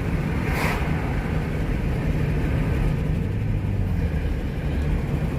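A vehicle's engine running steadily, a constant low hum, with a short rustle about half a second in.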